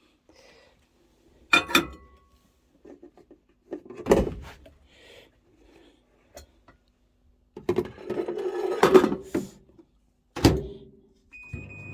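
Knocks and clatter of a bowl or dish being handled, then a thump like a microwave oven door shutting. Near the end come a short beep and the steady hum of the microwave starting to heat the porridge.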